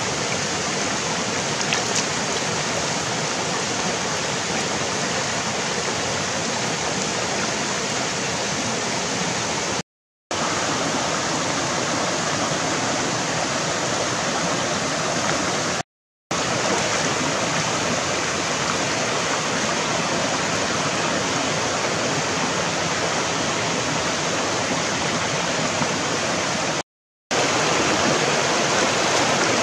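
Shallow rocky stream rushing steadily over stones, an even splashing hiss at constant strength. The sound cuts out completely for a moment three times.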